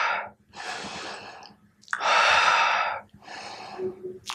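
A man taking slow, deep breaths, with louder breaths of about a second alternating with softer ones and short pauses between.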